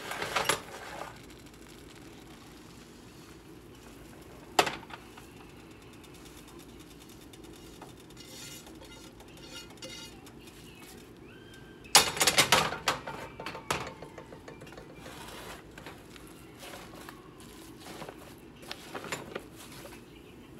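Cookware clatter: a skillet and spatula knocking and scraping against a metal baking pan as a thick brown-sugar syrup is poured and spread over sliced sweet potatoes. There are sharp knocks at the start and about 4.5 s in, and a longer cluster of clinks and scrapes about 12 s in.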